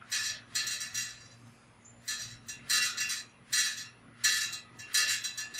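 Short metallic clinks from a bicycle chain breaker tool being turned on a chain as it drives a link pin out, about a dozen light clicks coming irregularly, roughly two a second.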